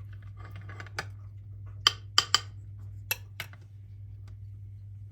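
Metal cutlery clinking against a dish: about six sharp clinks, the loudest three coming close together about two seconds in. A steady low hum runs underneath.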